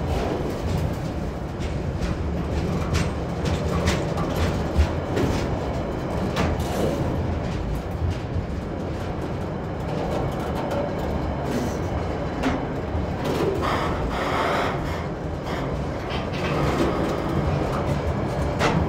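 Freight train hauled by diesel locomotives running across a steel truss bridge: a steady low rumble with scattered clicks and clanks of the wheels on the rails.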